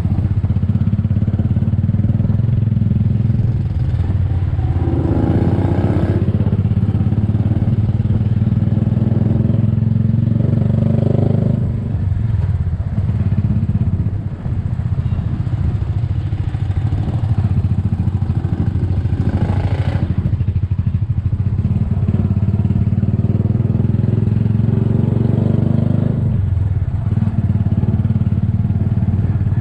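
Motorcycle engine running steadily as it is ridden, heard from on the bike; the engine note changes a few times with the throttle and eases off briefly near the middle.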